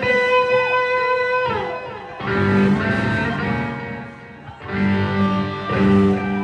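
Live rock band music led by electric guitar through the stage amplifiers. A long held chord slides down in pitch about two seconds in, and fresh chords follow three times, with low notes underneath.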